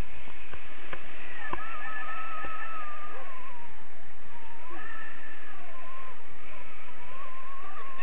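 Steady wind noise on a camera microphone from the airflow of a paraglider in flight, with a thin wavering whistle that comes in about a second and a half in and recurs through the rest.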